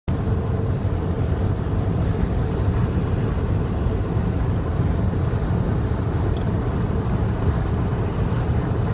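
Steady low rumble of road and wind noise from a car driving along a highway.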